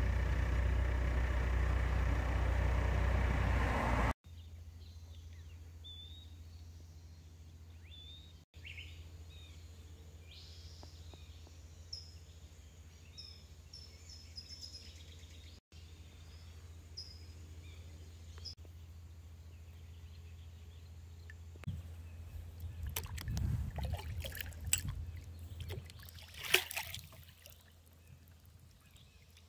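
A loud, steady rush of noise for about four seconds, then small birds chirping over a low steady hum. Near the end come a few seconds of kayak paddling: low knocks and sharp splashes of water.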